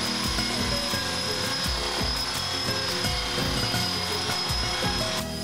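Blade 400 electric RC helicopter, fitted with a single-bladed main rotor and a single-bladed tail rotor, running on the ground with its rotor spinning and a steady high whine. Background music plays along with it.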